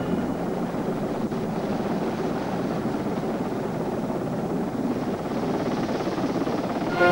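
Sea King search-and-rescue helicopter hovering low overhead, a steady noisy rotor and engine din mixed with wind buffeting the microphone.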